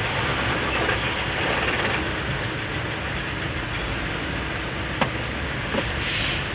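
Steady rumble of slow, congested road traffic: idling and crawling car and truck engines, including a heavy flatbed trailer truck alongside. A sharp click comes about five seconds in, and a short hiss comes near the end.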